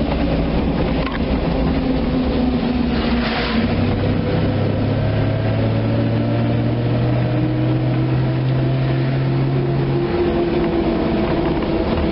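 Truck driving on a wet road, heard from inside the cab: the engine running under steady tyre noise. A steady low engine hum holds for several seconds through the middle.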